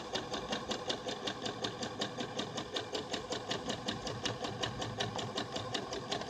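Electric sewing machine running steadily, stitching a zig-zag rolled hem along a saree's edge. The needle strokes tick in a fast, even rhythm over the motor's hum.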